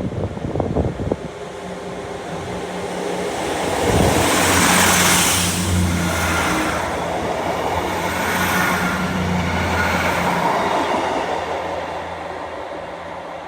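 A diesel train running at the station. Its engine hums steadily under the noise of wheels on rail, loudest from about four seconds in and fading near the end, with a few knocks in the first second.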